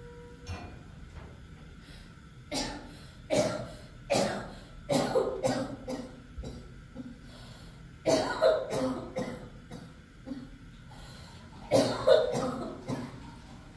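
A person coughing over and over in short fits of several coughs each, with pauses of a few seconds between the fits.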